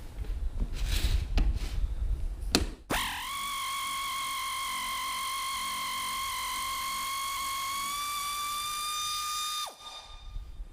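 Clatter and knocks of tools being handled, then an air ratchet with a T45 Torx bit runs for about seven seconds as a steady high whine. Its pitch rises slightly near the end, then it spins down and stops, backing out a seat-mounting bolt.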